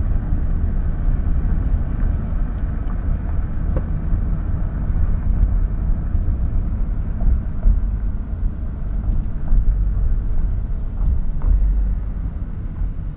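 Car driving, heard from inside the cabin: a steady low rumble of road and engine noise with a few light rattles, easing off slightly near the end.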